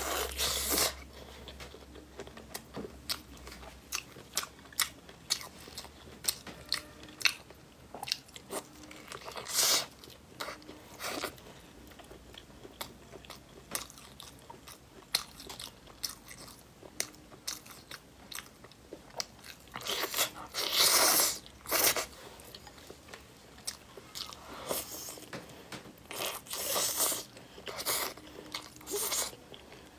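Close-miked eating of braised meat on the bone dipped in chili oil: biting, chewing and crunching with many short sharp clicks. A few louder, longer mouth sounds stand out, the loudest about two-thirds of the way in.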